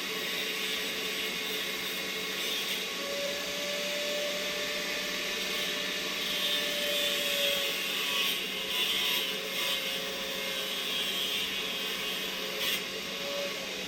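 A small high-speed electric power tool running steadily with a whine that wavers in pitch, falling in pitch near the end as it slows.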